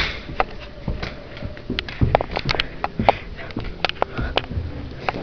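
Footsteps going up a carpeted staircase, with dull thumps and irregular sharp clicks from a jostled handheld camera.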